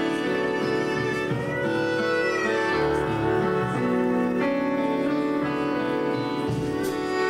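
Live instrumental chamber rock: bowed strings, held at the shoulder, play long sustained notes that change every second or two over low held notes.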